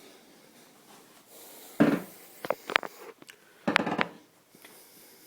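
Handling noise: a knock about two seconds in, a few sharp clicks, then another knock near four seconds in.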